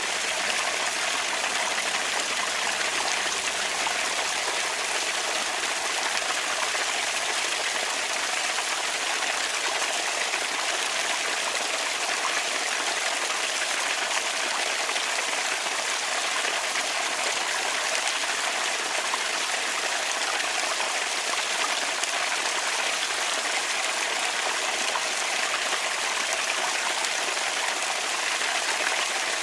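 Water from a bamboo water fountain running and trickling steadily in an even, unbroken splashing hiss.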